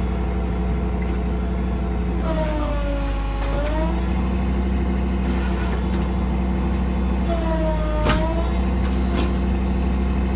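An engine on a mechanics service truck running steadily, with a higher whine that twice dips in pitch and recovers, as if briefly loaded; a sharp click comes at the end of the second dip.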